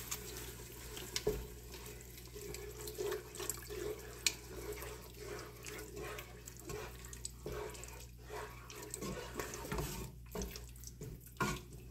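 Milk poured in a thin stream from a carton into a pot of soup, splashing steadily into the liquid, with a wooden spoon stirring and a few light knocks against the pot.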